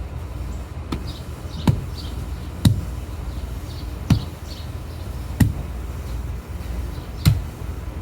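Dull thuds of a hand tool striking the ground while preparing a paver path bed, six blows at an uneven pace of roughly one a second, over a steady low rumble.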